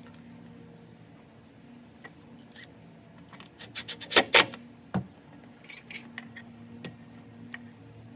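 A few sharp clicks and knocks from tools and metal parts being handled on an aluminum deck rail, the loudest cluster about four seconds in, over a faint steady hum.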